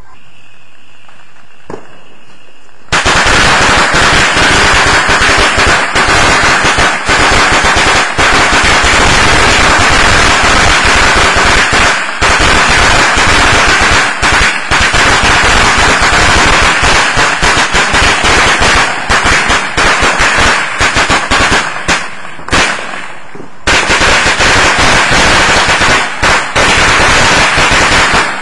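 A long string of firecrackers going off in rapid, continuous bangs. It starts about three seconds in, runs on for over twenty seconds, and has a brief lull a few seconds before the end.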